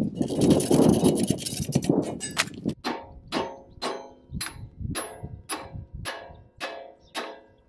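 Hammer striking the steel pulley on an electric motor's shaft: an even run of ringing metal blows, about two a second, starting about three seconds in after a stretch of rough noise.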